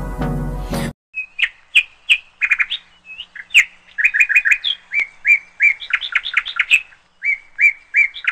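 A bird chirping over and over: short high notes, single and in quick runs of several, with brief pauses between. Before it, a second of music cuts off suddenly.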